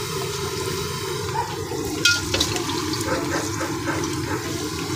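Spring rolls sizzling as they deep-fry in a kadhai of hot oil. About two seconds in come a few sharp metal clinks as tongs lift the rolls into a wire strainer.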